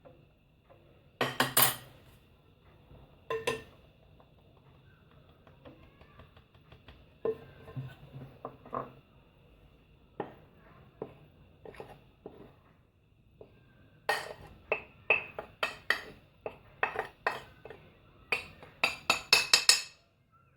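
Kitchen utensils knocking and clinking against a mixing bowl as flour is put in. A few separate knocks come first, then a quick run of several clinks a second over the last six seconds or so.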